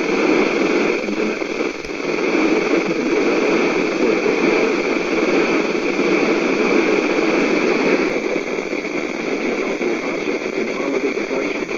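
Steady, loud static hiss from a weather-band radio receiver tuned to a weak, distant NOAA Weather Radio signal.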